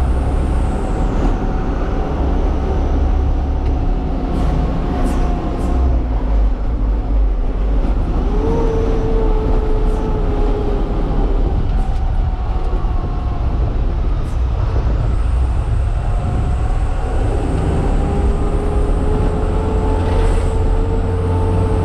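Truck engine running under way: a steady low drone whose pitch rises and falls a few times as the speed changes.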